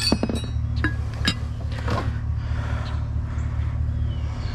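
A cookie jar clinking as it is handled, with a ringing clink at the start and a few sharper knocks over the next two seconds, over a steady low hum of an idling vehicle.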